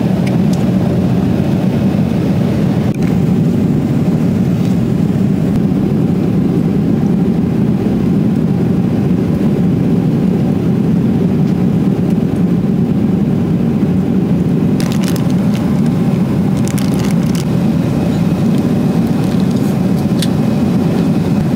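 Steady low roar of a jet airliner's cabin noise in flight, with a few short crackles about fifteen seconds in and near the end.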